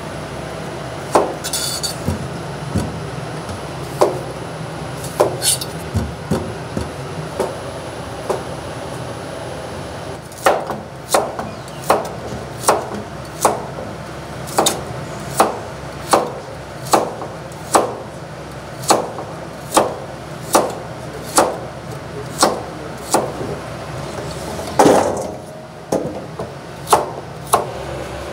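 Chef's knife chopping potatoes and carrots on a cutting board: a few scattered knocks of the blade on the board at first, then a steady chopping rhythm of about three strokes every two seconds. One louder knock comes near the end.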